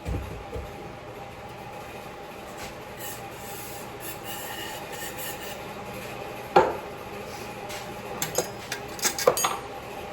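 Metal parts of a brake master cylinder being handled and worked on a bench, rubbing and clinking. There is a low knock at the start, a sharp clink about six and a half seconds in and a quick run of clinks near the end, over a steady hum.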